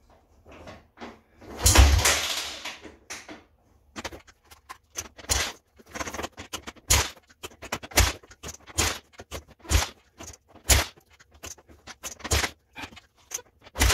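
Recoil pull-starter on a Honda FourTrax 300 ATV being yanked again and again: one long loud pull about two seconds in, then short sharp pulls about once a second. The engine does not fire.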